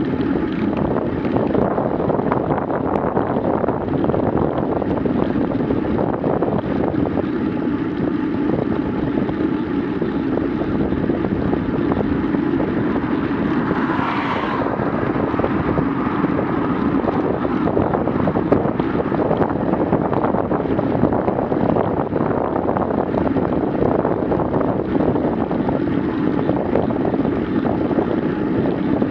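Steady wind rushing over the microphone of a bicycle-mounted Garmin VIRB action camera, mixed with tyre noise on asphalt, while riding at about 20 km/h.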